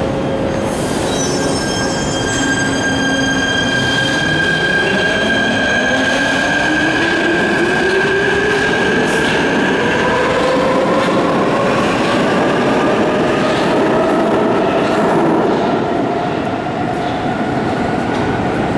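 Prague metro M1 train pulling out of the station: the whine of its traction motors climbs steadily in pitch as it picks up speed, over the rumble and rush of the wheels and cars passing close by.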